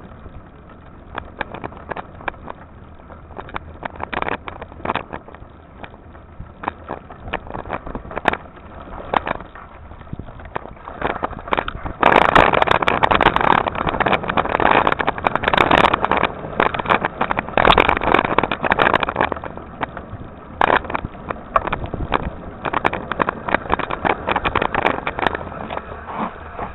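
Mountain bike rolling over a dirt trail: tyre noise on the ground with many sharp rattles and knocks from the bike over bumps. The rushing noise grows much louder for several seconds around the middle, then eases.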